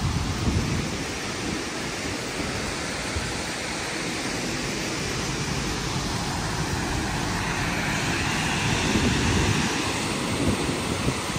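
Steady rushing of Bảo Đại waterfall across the gorge, with wind gusting on the microphone, a little louder near the end.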